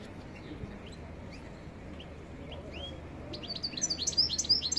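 Caged European goldfinch singing: a few scattered twittering notes at first, then, from a little past halfway, a quick run of rapid, bright chirps.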